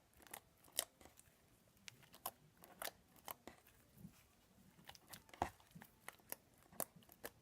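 Homemade school-glue and shaving-cream slime being kneaded by hand, giving quiet, irregular small clicks and pops a few times a second.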